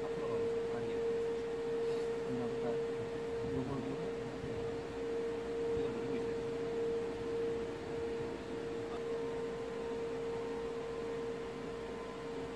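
Kia K9's power seat motors running with a steady electric whine as the front passenger seat drives forward and the rear VIP seat's powered footrest comes into play.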